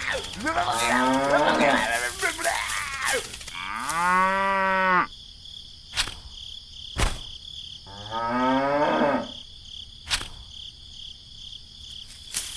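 Cattle mooing: several overlapping calls at first, then two long drawn-out moos, with a few sharp clicks between them.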